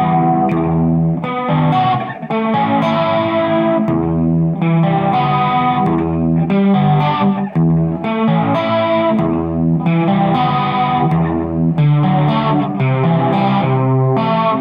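Song demo music led by electric guitar playing sustained chords, with low notes beneath, that change every second or two.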